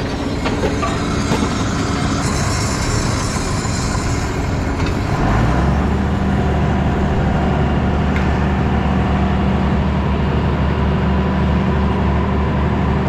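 A 7810 tractor and Gehl 1085 forage chopper running steadily while chopping corn silage, a loud continuous mechanical din. About five seconds in, a steady low engine drone settles in and holds.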